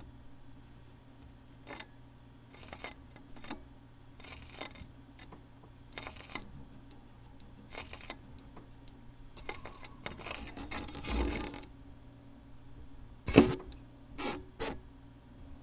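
Turntable stylus on a vinyl record: short crackly clicks repeating about every second or two over a low hum, a denser burst of needle scratching around ten seconds in, then a few sharp loud knocks near the end, the first the loudest.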